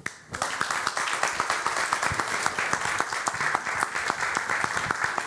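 Audience applauding at the end of a song: a crowd's dense clapping that breaks out suddenly about a third of a second in and carries on steadily.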